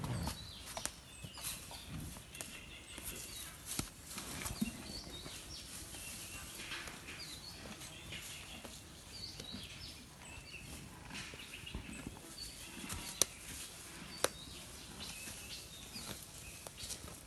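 Faint outdoor ambience with scattered small bird chirps, rustling and occasional clicks. Two sharp clicks come about a second apart roughly three-quarters of the way through.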